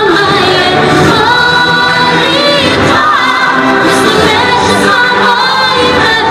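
A girl singing a pop song into a handheld microphone, amplified, in long held notes over instrumental backing from a band's keyboard.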